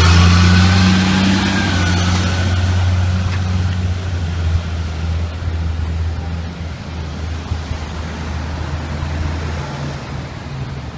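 Heavy tow truck's diesel engine passing close by, a low drone that is loudest at first and slowly fades as the truck pulls away, over city traffic noise.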